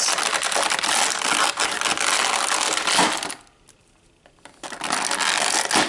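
Clear plastic blister packaging crinkling and crackling as toy figures are worked out of the tray. It comes in two spells: about three seconds, a pause, then about a second more near the end.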